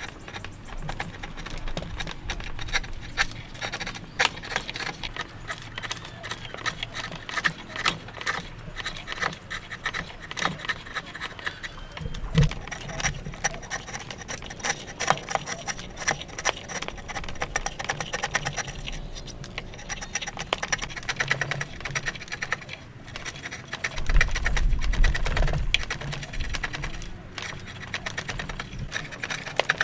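Hand chisel paring wood: quick, irregular scraping and slicing strokes as the blade is pushed across the grain and lifts curled shavings. A sharp knock comes about twelve seconds in, and a heavier low rumble lasts about two seconds later on.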